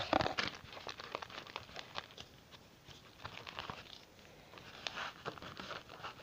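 Wooden craft stick stirring thickening PVA-glue slime in a plastic tub: a run of small sticky clicks and squelches, with a louder knock right at the start. The slime is setting as boric acid activator is worked in.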